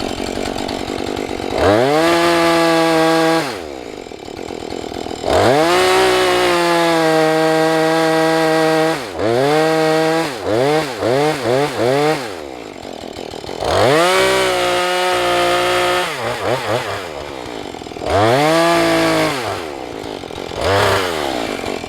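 Husqvarna 435 two-stroke chainsaw idling and revving up to full throttle in repeated bursts, the longest about four seconds, with a run of four or five quick blips of the throttle in the middle, as it cuts into a small leaning tree.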